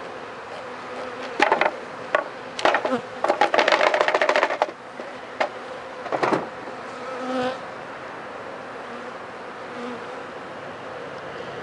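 Honey bees buzzing around an open hive, over sharp wooden knocks and scraping as hive frames are lifted out and set back into the box. The clatter is densest from about three to four and a half seconds in, and a short louder buzz passes about seven seconds in.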